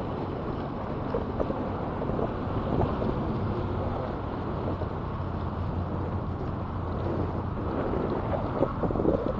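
Wind blowing across the microphone as a steady rushing noise, over choppy water washing against concrete breakwater blocks.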